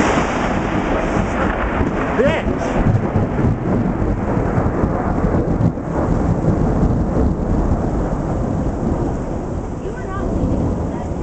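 Thunder after a close lightning strike, rumbling loudly and at length and easing off slightly near the end, with rain falling.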